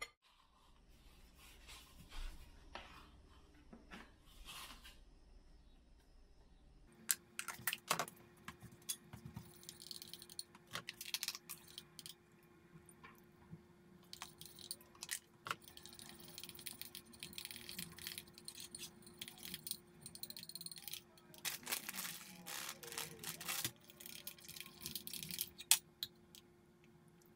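Quiet food-prep handling sounds: a metal spoon scraping and clinking in a bowl and scooping from a plastic tub, with scattered clicks, rustles and knocks. A faint steady hum starts about a quarter of the way in.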